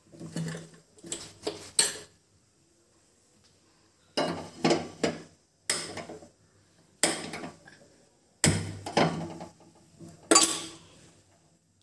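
A stainless-steel cooking pot being handled on a gas stove: a series of short metallic clanks and knocks, with silent gaps between them.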